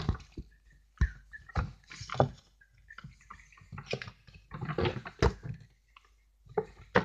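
Handling noise: a brown paper shopping bag rustling and crinkling as items are moved and set down, in several short spells with a few sharp knocks.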